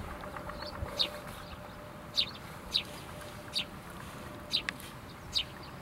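A bird calling outdoors: about six short, high chirps, each dropping quickly in pitch, at uneven intervals over faint background haze.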